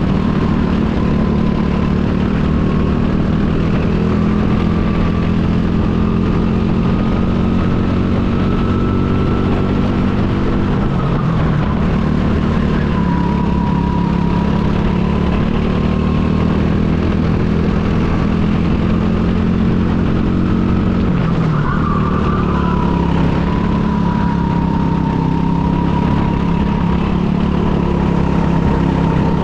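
Go-kart engine running steadily under load, with a thin high whine above it; its pitch dips briefly about eleven seconds in and again about twenty-one seconds in, then picks back up.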